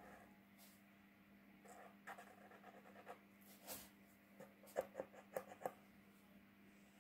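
Paint marker tip rubbing over paper while colouring in, in faint scratchy strokes. About five seconds in there is a quick run of four sharper clicks.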